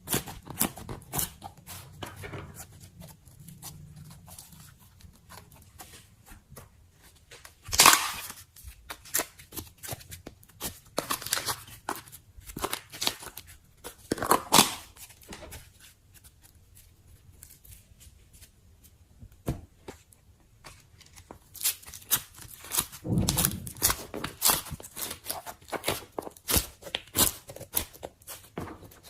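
Slime being poked and pulled by hand: a run of small sticky clicks and pops, with louder crackling bursts now and then.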